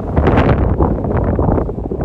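Strong gusty wind buffeting the microphone, a loud low rumble that swells and drops every fraction of a second.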